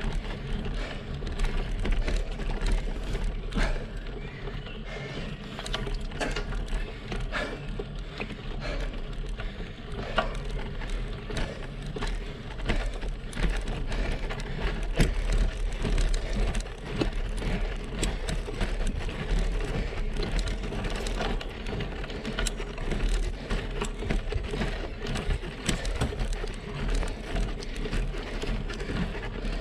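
Road bike riding over rough, patched asphalt, heard from a bike-mounted camera: tyre and road noise with frequent small knocks and rattles from the bumps, over a steady low rumble.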